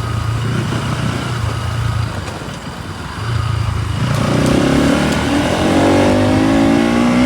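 Bajaj Pulsar NS200 single-cylinder engine under way. It runs steadily, eases briefly, then from about four seconds in accelerates hard, its pitch climbing steadily to the loudest point near the end.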